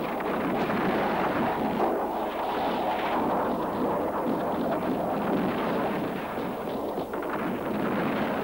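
Anti-aircraft guns firing in sustained bursts, a dense, continuous rattle of shots with no clear gaps.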